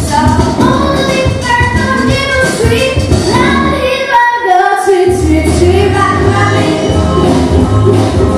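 Two girls singing a pop song into microphones over backing music. About halfway through, the bass drops out for about a second, then comes back in steadily under the voices.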